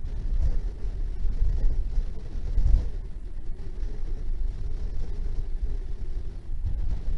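Wind buffeting an outdoor microphone: a low, gusty rumble that swells and eases.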